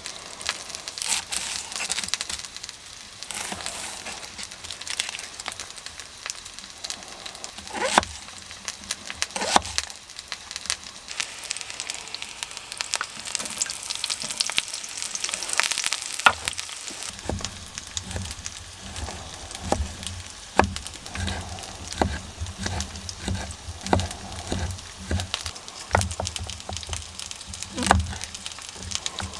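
Spicy sausages frying in oil in a pan on a wood stove: steady sizzling with frequent sharp pops and spits. A low rumble joins about halfway through.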